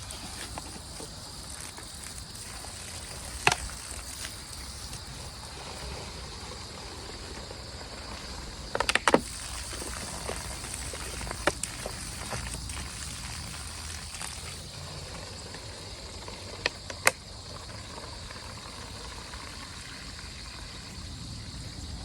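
Outdoor ambience: a steady high-pitched drone over a low rumble, broken by a few sharp knocks, a cluster of them about nine seconds in.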